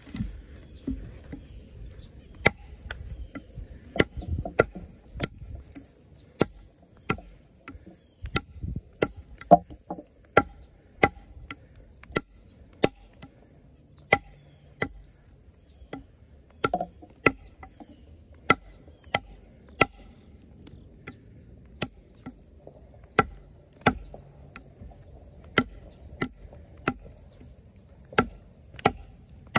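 A heavy fixed-blade knife with an N690 steel blade, the Extrema Ratio Tuscan, chopping into wood in repeated sharp blows, a little more than one a second. A steady high chirring of insects runs behind.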